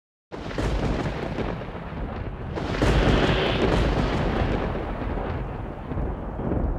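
Film soundtrack of a dense, deep rumble like rolling thunder, starting suddenly a fraction of a second in and swelling louder about three seconds in, then again near the end.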